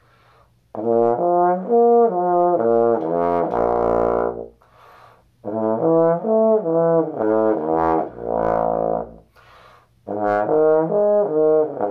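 Trombone playing a fifths study, an embouchure exercise for moving smoothly between registers. It comes as three short phrases of stepped notes, each ending on a held note.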